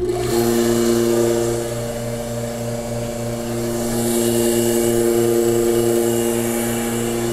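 Electric vacuum pump switching on and running with a steady hum and hiss as it starts drawing the air out of a large plastic vacuum bag.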